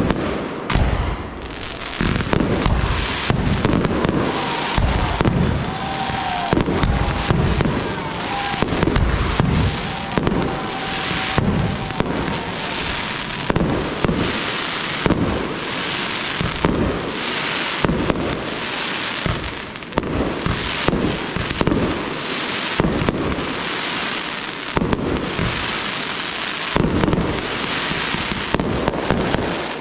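Fireworks display: a continuous barrage of launches and aerial shell bursts, dense rapid bangs one after another without a pause.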